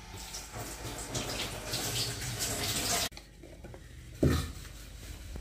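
Prawn masala sizzling in a covered pan under a glass lid, a crackly hiss that grows louder and then cuts off suddenly about three seconds in. A single soft thump follows about a second later.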